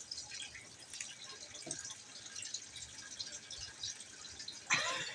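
Faint crinkling and light ticks of a shrink-wrapped board-game box being handled and turned over with gloved hands, with a louder rustle near the end.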